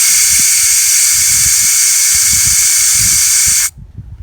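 Refrigerant vapour hissing out of an air conditioner's service port through a quick acid test kit, which checks the system for acid contamination. A loud, steady hiss that cuts off suddenly near the end.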